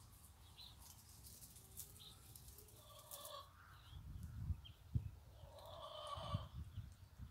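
Ducklings peeping in short high chirps, with a couple of stretches of lower calling about three and six seconds in. A few deep thumps come in the second half, the sharpest about five seconds in.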